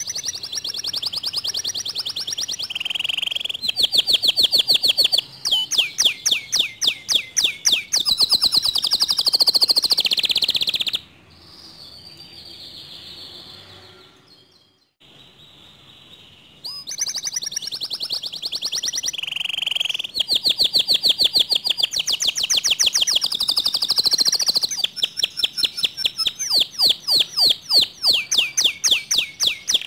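Canary singing: long phrases of rapid, repeated trilled notes, changing from one trill to the next every second or two, with a quieter break of a few seconds in the middle.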